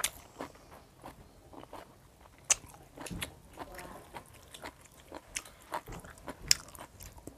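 A person chewing boiled pork offal close to a clip-on microphone: irregular wet crunches and mouth clicks, with two sharper clicks about two and a half and six and a half seconds in.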